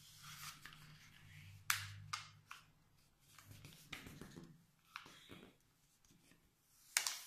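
A sheet of paper handled, folded and creased by hand: soft rustling broken by sharp crinkles and snaps of the paper, the loudest about 1.7 seconds in and just before the end.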